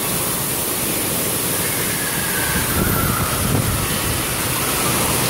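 Giant tipping water bucket dumping its load onto a water-park play structure: a steady, loud rush of falling water splashing down.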